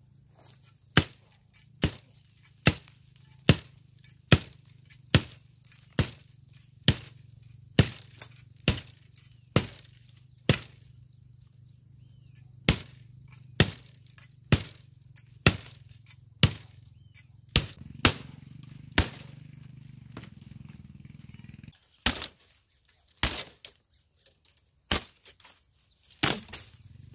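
Chopping woody scrub brush with a hand blade: sharp strikes a little under a second apart, with a short pause about ten seconds in and fewer, uneven strikes in the last few seconds. A low steady hum runs under the strikes and stops about three-quarters of the way through.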